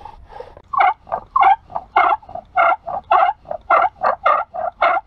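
Large bow drill boring a hinge hole into a log: a rhythmic squeak as the bow is sawed back and forth, about two squeaks a second with fainter ones in between, from the wooden spindle turning under pressure.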